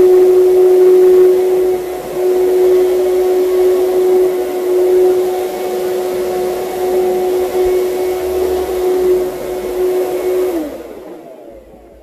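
Anway Clear Trak cyclonic upright vacuum running on commercial carpet with a steady high whine and hiss. Near the end its motor pitch drops and the sound dies away as it winds down.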